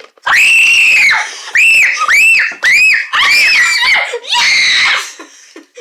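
Kids shrieking: one long high-pitched scream, then a run of short, rising-and-falling shrieks.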